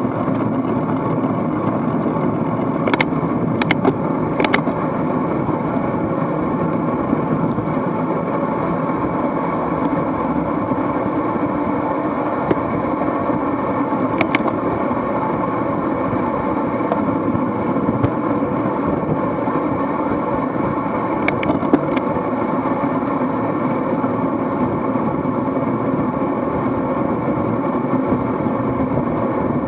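Steady rush of wind and tyre noise on a bike-mounted action camera's microphone while riding in a road-race pack at around 20 mph. A few sharp clicks break through: three a few seconds in, one near the middle and a pair about two-thirds through.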